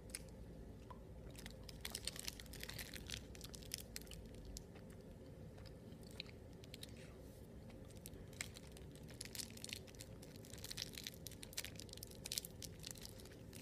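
Candy being chewed close to the microphone, with irregular sharp crunches coming in clusters, most often in the last few seconds.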